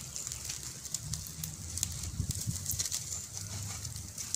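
Small open fire of dry sticks and leaves crackling, with many short, sharp pops and snaps scattered throughout.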